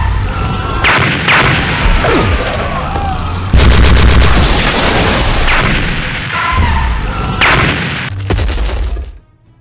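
Layered battle sound effects of gunfire and explosions. A loud burst of rapid shots comes in about three and a half seconds in, and the din dies away just before the end.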